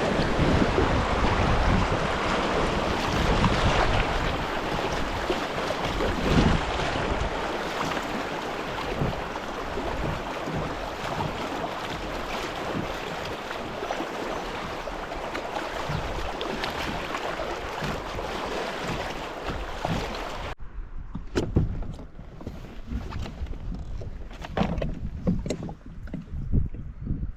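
Rushing water of a river riffle around a kayak, a steady dense wash, with some wind on the microphone. About 20 seconds in it cuts off abruptly to much quieter water, with a few light knocks.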